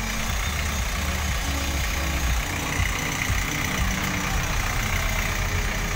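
Steady engine rumble and road noise heard from inside a moving open-sided passenger vehicle.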